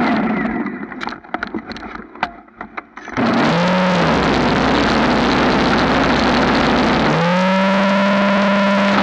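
Greenworks electric snow thrower: its motor whine dies away at the start, and about three seconds of faint clicks and crunches follow. The motor then starts again and churns through snow with a loud, even rushing noise. Near the end its steady whine returns.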